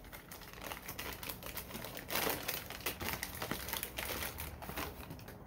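Paper wrapping crinkling and crackling as it is pulled off a drinking glass, in a quick, irregular run of small crackles, a little louder about two seconds in.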